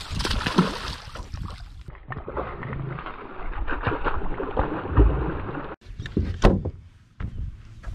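A large hooked gar thrashing at the surface beside a bass boat, splashing water hard and continuously. There are a few heavier thumps about five and six and a half seconds in.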